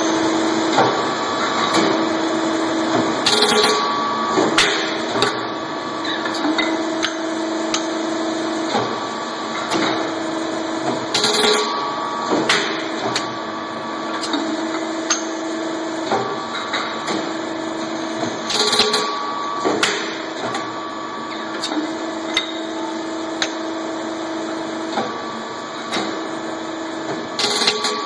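Vertical impact extrusion press cold-extruding aluminium capacitor shells: a steady machine hum, with a loud sharp strike of the press stroke roughly every seven to eight seconds, four times, and lighter metallic clicks and knocks between them.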